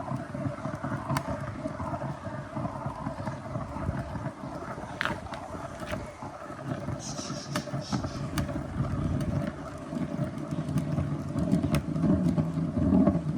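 A ball rolling steadily round and round a circular marble-run slope, giving a continuous rumble, with a few sharp clicks as it knocks against the track.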